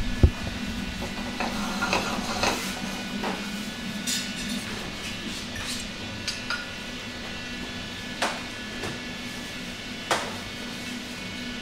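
A metal spatula knocks sharply on a frying pan as the fried gnocchi is lifted out, then utensils scrape and clink lightly against pan and china plate, with two clearer clinks near the end. A steady low hum runs underneath.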